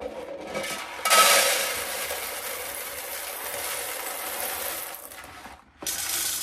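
Whole coffee beans pouring in a steady stream into a storage jar. The pour grows loud about a second in, thins out and breaks off briefly near the end, then starts again.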